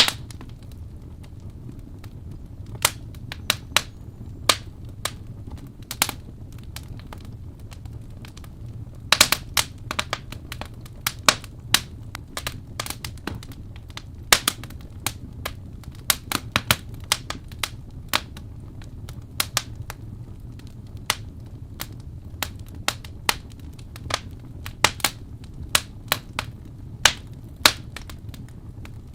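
Wood fire in a fireplace crackling, with sharp irregular pops over a low steady rumble.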